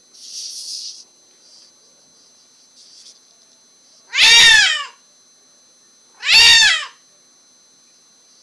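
White cat, born deaf, giving two loud meows about two seconds apart, each rising then falling in pitch; her owners put the loudness down to her deafness, saying she has no volume control. A short, soft rustle comes near the start.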